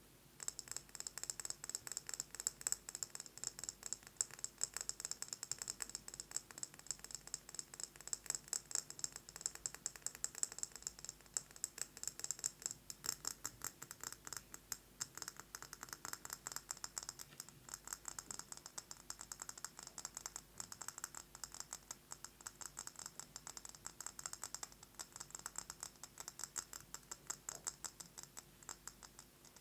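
Fast fingernail tapping on a candle jar: a rapid, unbroken run of light clicks, starting after a brief pause at the very beginning.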